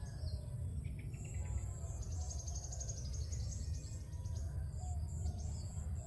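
Birds chirping and an insect trilling, with a steady low rumble underneath.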